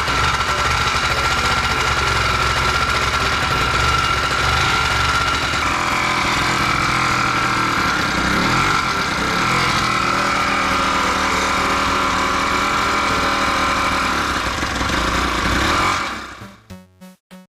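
Yamaha Blaster ATV's two-stroke single-cylinder engine running with a steady, rattly knock: the abnormal engine noise being chased down. Its pitch shifts about five or six seconds in. It cuts off about a second before the end, and rhythmic background music follows.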